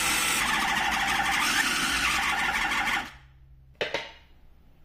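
Food processor motor running steadily as it kneads chapati dough with ghee and warm water, then switching off about three seconds in. A short knock follows a moment later.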